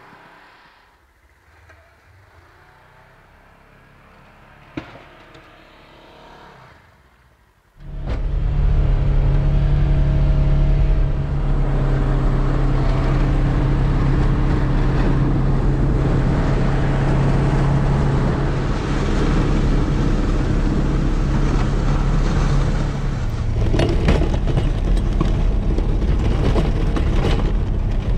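Side-by-side UTV engine running steadily under load as its front plow blade pushes through deep snow, starting suddenly about a quarter of the way in. Before it, a few quiet seconds with a single sharp knock.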